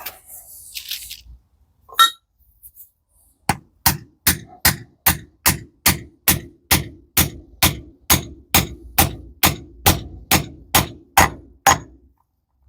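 Hammer blows driving a bearing onto a Toyota MMT gearbox shaft, struck on the bearing's inner race: one blow, then a steady run of about twenty quick, even blows, about two and a half a second, stopping once the bearing has seated.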